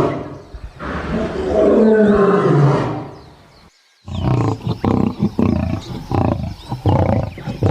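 Lion roar sound effect: a long roar falling in pitch, then, after a brief break, a run of short, rapid grunting calls.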